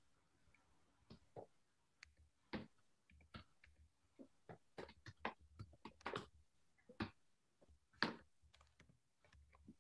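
Quiet, irregular clicking of keys being typed on a computer keyboard.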